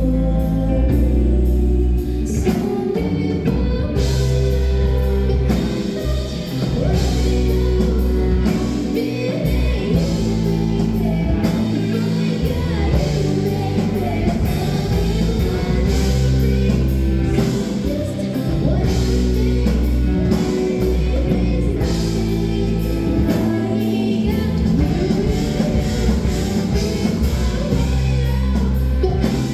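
Music with singing over guitar, bass and drums, in a gospel style.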